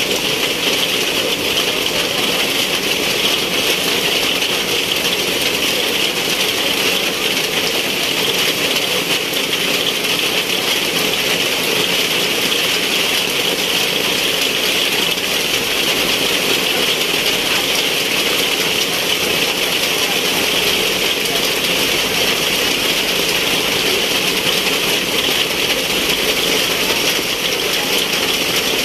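Heavy rain pouring down in a steady, dense hiss that does not let up.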